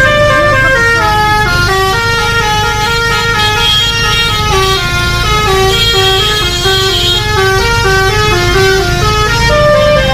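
Bus basuri telolet horn playing a fast stepping melody, several notes sounding together, over a steady low rumble.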